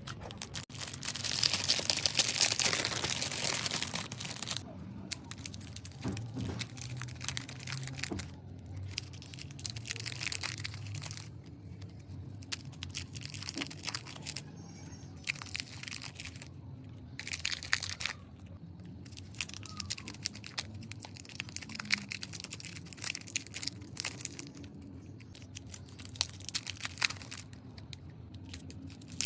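Slime being squeezed and worked by hand, giving a dense run of crackles, clicks and pops. It is loudest for the first few seconds.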